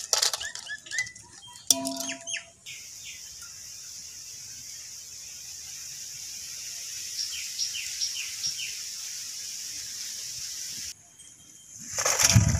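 Birds chirping, with a quick run of about five short falling chirps midway, over a steady high hiss. Near the end comes a loud crisp rustling crunch of fried potato chips being handled in a metal pot.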